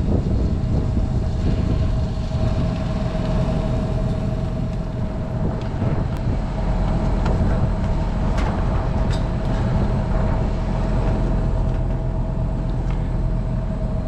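Steady low machinery drone with a constant mid-pitched whine, and a few light clicks and taps from screws being driven into an inverter board.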